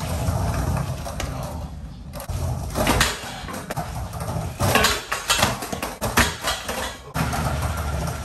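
Skateboard wheels rolling over a tiled floor with a low rumble, broken several times by sharp clacks and knocks of the board being popped and landing.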